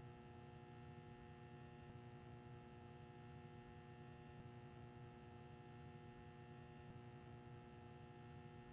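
Near silence: a faint, steady hum that does not change.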